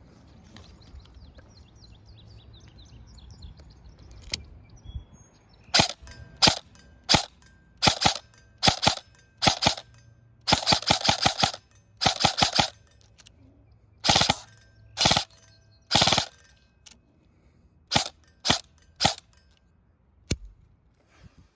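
Krytac Trident MK-II electric airsoft rifle with stock internals firing: a lone shot, then single shots mixed with short full-auto bursts, each a quick string of sharp cracks.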